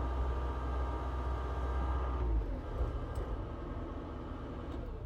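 CAT skid steer's diesel engine running, its deep low rumble dropping away about two seconds in to a lighter, steady running sound.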